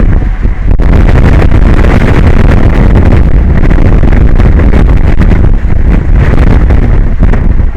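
Strong wind buffeting the microphone: a loud, steady rumbling roar with no pitch, heaviest in the low end, with a few brief dips.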